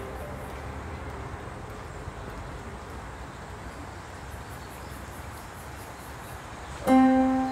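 Outdoor ambience: a steady low rumble with faint, evenly repeating insect chirps high up. Near the end, background music starts sharply with a loud plucked guitar note, the loudest sound.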